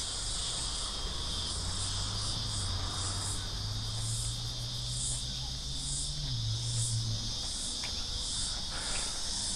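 Insects buzzing steadily in the trees: a high, continuous chorus that pulses about twice a second, with a faint low hum underneath.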